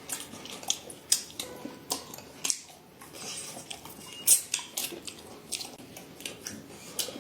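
Irregular light clicks and clinks of tableware on dishes during a meal, with a sharper clink about four seconds in.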